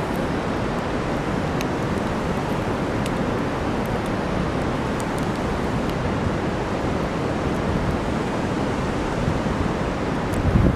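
Steady rushing noise of the River Po running high in flood, in the rain, with a few faint scattered ticks.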